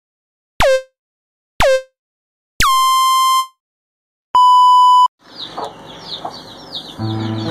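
Countdown-intro tones: three short tones about a second apart, a longer tone an octave higher, then a steady electronic beep. From about five seconds in, chicks peep in quick falling chirps, several a second, and background music comes in near the end.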